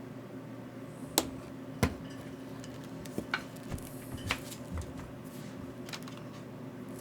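Small hard objects clicking and clacking on a workbench as tools and connector parts are handled: two sharp knocks about a second and two seconds in, then a scatter of lighter taps, over a steady low hum.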